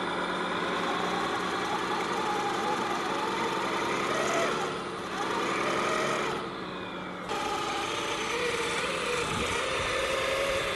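1/14 scale RC six-wheel dump truck driving through loose dirt, its drive whining with a pitch that rises and falls as it works through the ground. The sound changes suddenly about seven seconds in.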